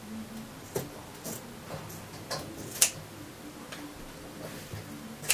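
Scissors snipping through stiff sinamay fabric, trimming the excess from around a hat block, with short sharp cuts about every half second; the loudest comes near three seconds in.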